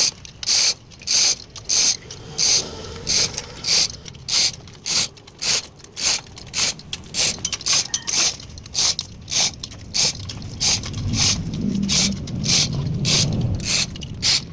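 Socket ratchet wrench worked in short strokes, a burst of ratchet clicks with each stroke about twice a second, as the injection pump on a 4BC2 diesel engine is bolted on. A low rumble joins underneath near the end.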